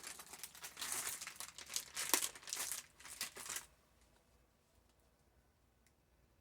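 Crinkling and rustling of a baby wipe being handled and rubbed, wiping mica powder off the centre of a resin necklace bezel; it stops about three and a half seconds in.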